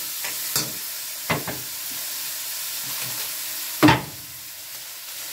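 Crabs frying in a steel wok with a steady sizzle, stirred with a metal ladle that knocks against the wok a few times, the loudest knock about four seconds in. After it the sizzle is a little quieter.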